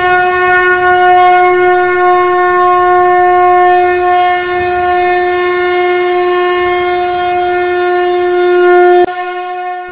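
Conch shell (shankh) blown in one long, steady note that cuts off suddenly about nine seconds in.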